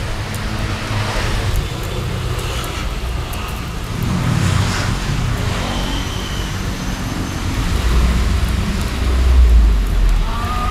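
Street traffic noise, a steady hum of passing road vehicles, with a louder low rumble as a vehicle goes by about eight to ten seconds in.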